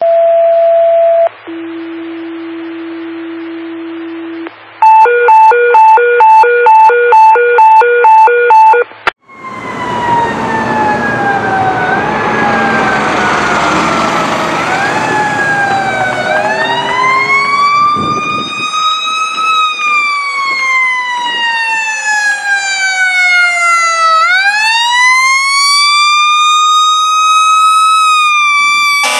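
Fire dispatch paging tones: a short high tone, a longer lower tone, then a run of quick pulsed beeps. They are followed by a fire engine's Federal Q mechanical siren, first winding down in long falling glides with brief upward blips, then spinning up and coasting down in a slow rise and fall.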